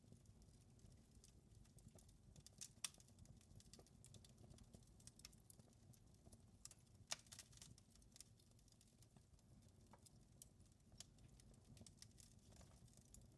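Wood fire in a fireplace crackling faintly: irregular sharp pops and snaps over a low steady rumble, with two louder pops about three and seven seconds in.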